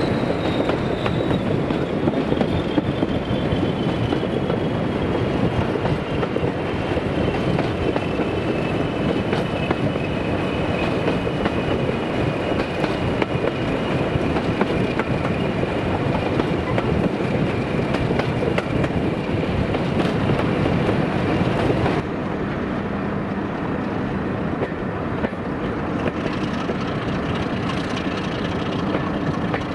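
A diesel-hauled heritage train rumbling along the track, with wheel and rail noise and a thin high squeal that slowly falls in pitch. About three-quarters of the way through, the sound cuts abruptly to a quieter, steady diesel engine hum.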